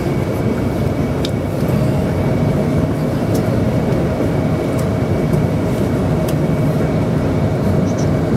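Jet aircraft noise on an airport apron: a steady, loud low rumble with a thin, constant whine above it.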